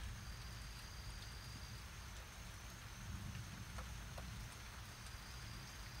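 Quiet outdoor ambience during a thunderstorm: a steady low rumble with an even faint hiss, and a couple of faint ticks near the middle.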